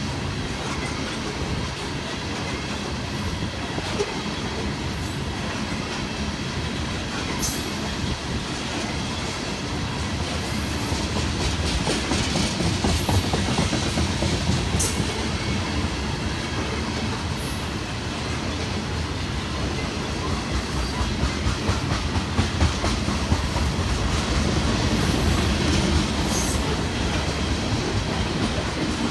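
Freight train of loaded ethanol tank cars rolling past: steady heavy wheel-on-rail rumble with clickety-clack over the rail joints and a few brief high wheel squeals.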